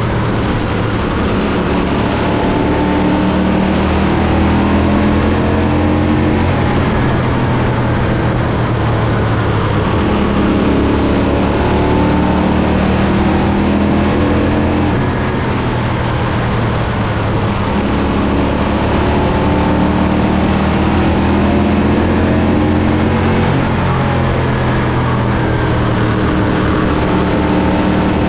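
Bandolero race car engines running at speed, their pitch rising and falling as the throttle opens and closes.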